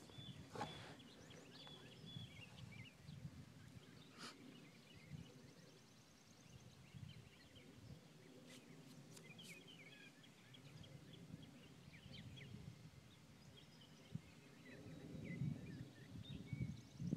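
Near silence, with faint bird chirps scattered throughout.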